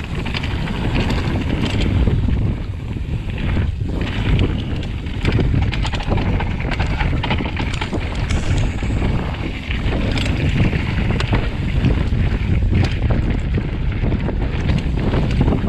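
Wind buffeting the microphone of a handlebar camera on a fast mountain-bike descent, with tyres crunching over loose slate and gravel and a steady clatter of knocks from the titanium hardtail bouncing over the rocks.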